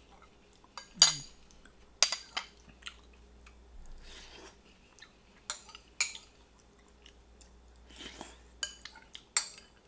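Cutlery clinking against a dish during a meal: a series of sharp clinks, the loudest about a second in, with softer rustling handling noise between them.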